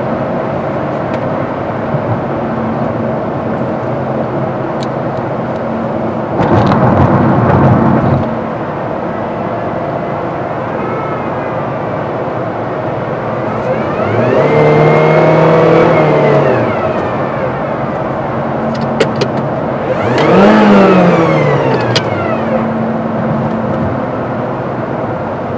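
Honda Civic being driven, heard from inside the cabin: a steady engine hum with road and tyre noise. A louder rush comes about a quarter of the way in, and twice later the sound swells as a pitched hum rises and then falls again.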